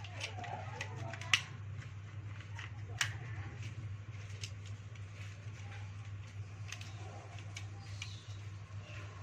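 Scattered small clicks and taps of hand work on small parts, the loudest a sharp click a little over a second in and another about three seconds in, over a steady low hum.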